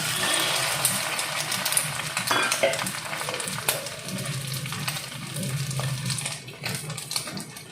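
Egg-dipped vegetable cutlets sizzling and crackling in hot oil in a frying pan, starting suddenly as they go in, loudest at first and slowly easing off.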